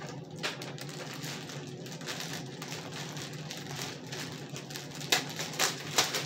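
Clear plastic bag crinkling and rustling as it is handled and pulled open, with a few sharper crackles near the end.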